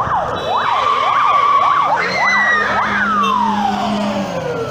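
Police car siren sweeping quickly up and down in a yelp, holding one steady tone for about a second, then yelping again. About three seconds in it winds down in a long falling glide as it is switched off. A low steady tone sounds under it for a couple of seconds.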